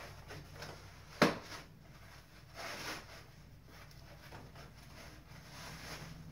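Handling noise as a hand is fitted onto the arm of an animatronic clown prop: one sharp knock about a second in, then softer rustling and scraping.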